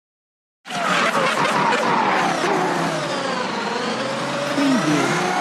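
Formula 1-style race car engines at high revs, starting abruptly about a second in. Their pitch falls over the first couple of seconds, levels out, then rises a little near the end.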